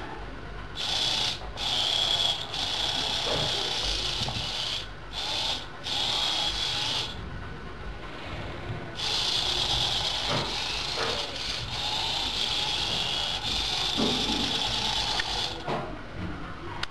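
Small electric drive motors of a homemade wheeled robot whirring in spells as it drives and turns, stopping and starting several times, with a longer pause of about two seconds near the middle.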